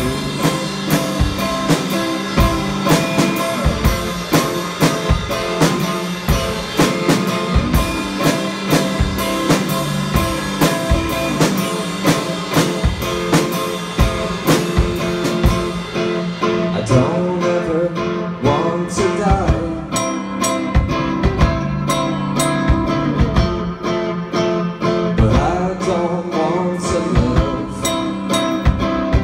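A live rock band playing: Telecaster-style electric guitar through an amp over a drum kit keeping a steady beat.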